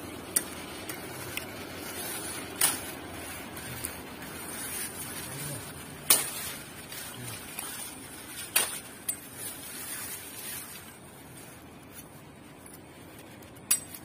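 About half a dozen sharp clicks and light rustles from hands handling a woven bamboo fish trap and the dry bamboo leaves around it, over a faint steady background noise. The loudest click comes about six seconds in.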